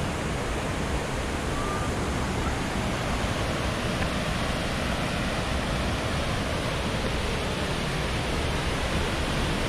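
Steady rushing of a waterfall: the Little River pouring over the Sinks.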